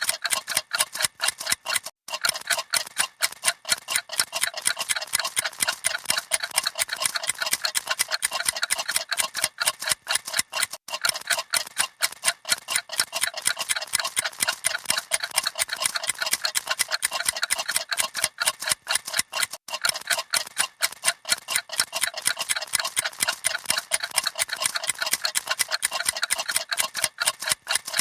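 Several clocks ticking together, a dense, rapid run of overlapping ticks.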